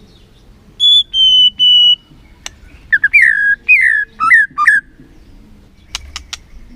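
White-rumped shama (murai batu) singing: three loud, clear whistled notes about a second in, each slightly falling, then a quick run of about six down-slurred notes, followed by a few sharp clicks near the end.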